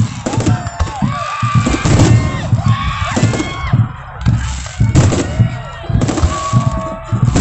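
Aerial fireworks going off in quick succession: repeated loud bangs with low rumbling booms, mixed with crowd voices and music.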